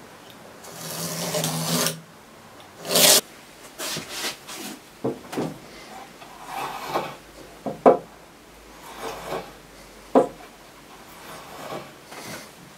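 Metal marking-out tools scraping and rubbing on planed softwood: a combination square slid along a board, then a wheel marking gauge drawn across the timber. There is a longer scrape near the start, a loud brief one about three seconds in, then several short scrapes and light knocks.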